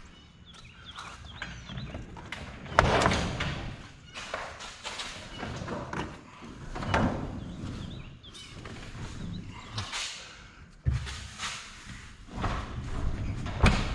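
Irregular thumps, knocks and scraping of a large metal freezer cabinet being shoved and rocked against a wooden door frame. The loudest knocks come about three seconds in and again near eleven seconds.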